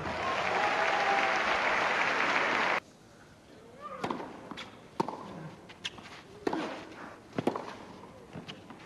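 Crowd applauding, cut off abruptly about a third of the way in. Then a tennis serve and rally: sharp racket strikes on the ball, roughly one a second.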